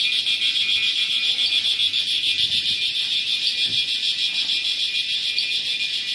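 Dusk chorus of insects: a loud, steady, high-pitched trill with a fast even pulse.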